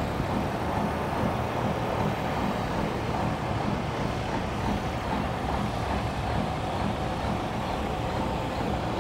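Steady low rumble of idling diesel semi-truck engines, with a faint steady whine above it.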